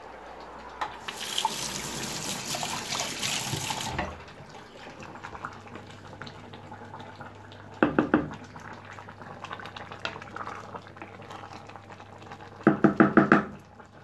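Water running from a kitchen tap for about three seconds, then cut off. About halfway through, a brief clatter of a wooden spoon against a metal cooking pot. Near the end, a quick run of knocks.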